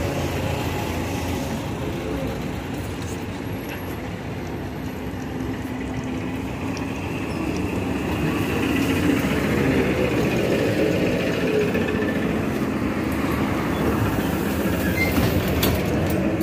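BTZ-5276.04 trolleybus pulling up to a stop and then heard from on board: a steady drive hum mixed with road and traffic noise. It grows louder about halfway through, with a few short clicks near the end.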